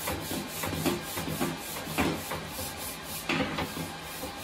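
A wad of paper towel rubbing across a black vented PC case panel, wiping it clean in repeated short strokes of uneven pace.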